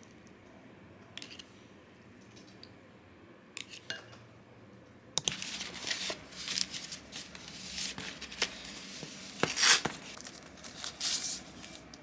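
Packaging rustling and crinkling as it is handled, with a few small clicks before the rustling starts about five seconds in.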